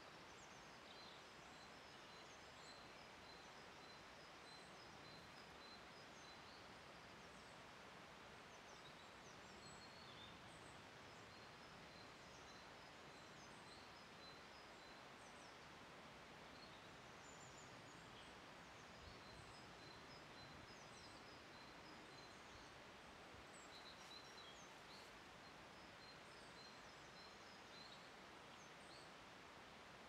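Faint birdsong: many short, high chirps and a thin note repeated in quick runs, over a steady hiss.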